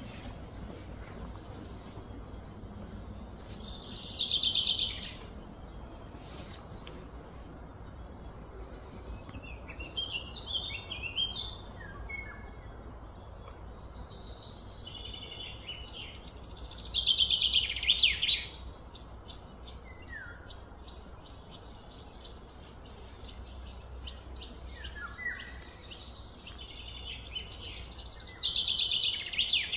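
Birds singing outdoors over a steady background hum: three loud chirping phrases, each about a second and a half long and falling in pitch, come about a dozen seconds apart, with shorter scattered chirps between them.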